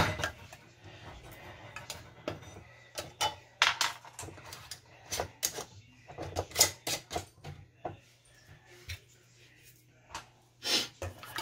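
Scattered light metallic clicks and clinks of canning lids: a magnetic lid wand lifting flat lids out of a pan of hot water, and the lids being set onto glass jars. A faint low hum runs underneath.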